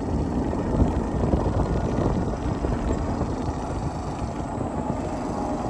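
Wind buffeting the microphone and tyre noise on asphalt from a Pacific Bike Mizone electric scooter riding along at about 25 km/h.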